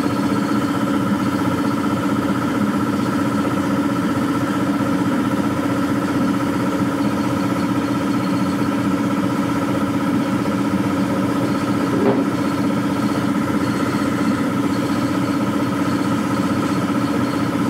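Spray-painting machinery running: a steady, unbroken motor drone with a constant hum, and a single short knock about twelve seconds in.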